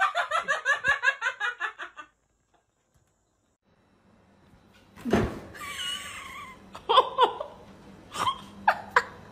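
A person laughing hard in quick, rhythmic bursts for about two seconds. After a pause comes a thump, then a few sharp knocks and clicks.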